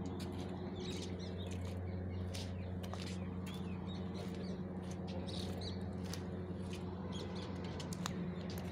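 Small birds chirping repeatedly, short high calls scattered all through, over a steady low hum.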